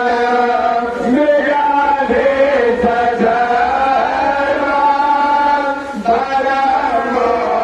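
A man chanting Vedic Sanskrit mantras into a microphone, holding long notes on a few pitches with slow glides, with short breaks about a second in and again about six seconds in.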